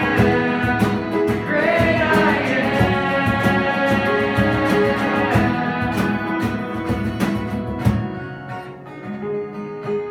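Live worship music: a strummed acoustic guitar with singing, growing quieter near the end.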